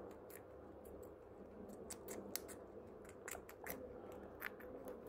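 A guinea pig biting and chewing a slice of tomato: an irregular run of small sharp clicks from its teeth, coming in quick clusters.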